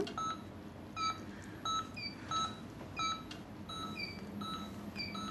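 Hospital bedside patient monitor beeping: short electronic beeps about twice a second, in two alternating pitches.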